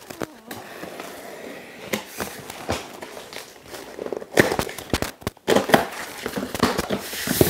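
Razor blade cutting open a cardboard shipping box: an irregular run of scrapes, clicks and tearing as the blade drags through the cardboard and the box is handled.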